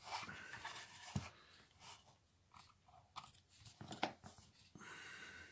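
Small scissors snipping through a cotton wick: a few faint, crisp crunching cuts and light clicks.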